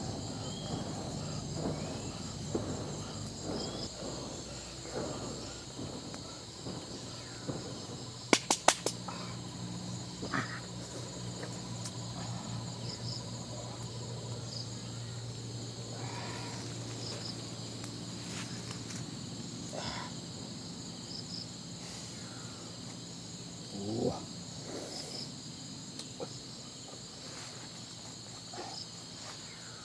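Steady chorus of crickets and other insects with a high, even buzz. About eight seconds in there is a quick run of three or four sharp knocks, the loudest sounds here.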